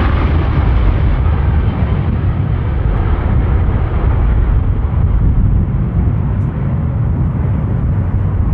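Airbus A380-861 climbing away at takeoff thrust on its four Engine Alliance GP7200 turbofans: a loud, deep, steady rumble whose higher hiss dims as the airliner draws away.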